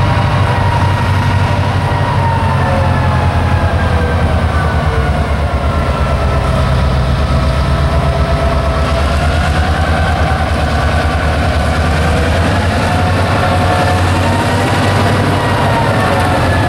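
Norfolk Southern diesel freight locomotives approaching and drawing alongside: a loud, steady deep engine rumble under a whine whose pitch drifts slowly down and back up.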